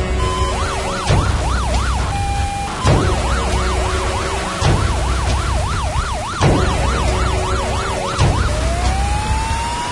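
Fire engine's electronic siren sounding a fast yelp, its pitch sweeping up and down about three times a second, with a short break around two seconds in. Near the end it changes to a slow rising wail. Background music with a beat about every two seconds plays under it.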